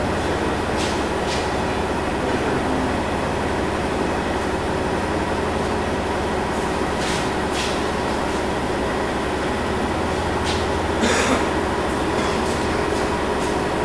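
Steady machine drone with a low hum under an even rushing noise, broken by a few short sharp sounds, the strongest about eleven seconds in.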